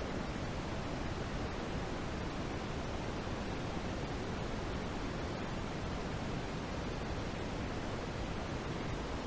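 Steady, unchanging synthetic noise, stronger in the low end than the highs, like pink noise; an even hiss with no pattern or events.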